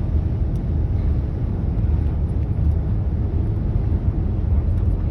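Storm wind buffeting the microphone: a loud, continuous low rumble that rises and falls with the gusts.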